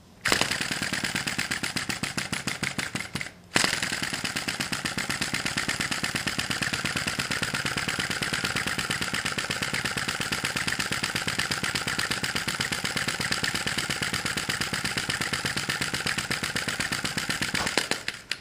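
Sai Hu V1-45 flame-licker vacuum model engine starting after its flywheel is spun by hand, then running with a rapid, even beat. The beat breaks off briefly about three and a half seconds in and then runs steadily.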